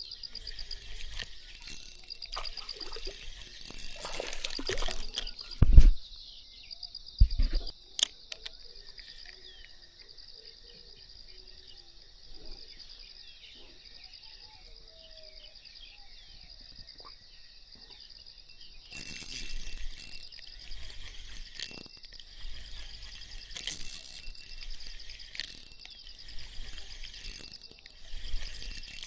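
Insects chirring steadily at a high pitch, louder and pulsing in the first few seconds and again in the last ten, fainter in between. Two short dull thumps about six and seven seconds in.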